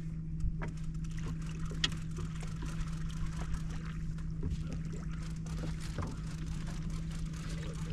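Boat motor running with a steady low hum at one pitch, over a low rumble, with a few faint knocks and clicks.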